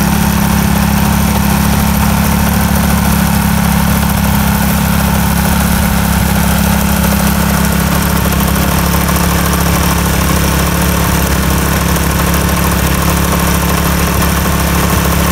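Small gasoline engine of an airless line-striping machine running steadily, loud and unchanging, while it sprays yellow traffic paint.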